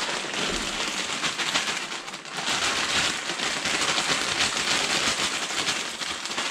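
A plastic bag of dry rotini pasta crinkling as the pasta is shaken out of it into a pot, making a dense, continuous crackle of tiny clicks and rustles.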